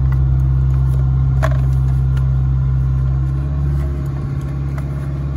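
An engine idling steadily, its note shifting slightly a little past halfway, with a few light clicks from wiring being handled.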